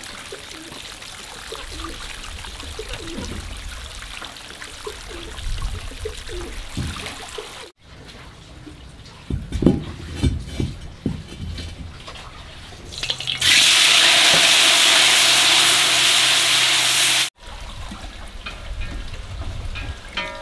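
Running and splashing water with a few knocks, then a loud, steady rush of water for about four seconds that cuts off abruptly.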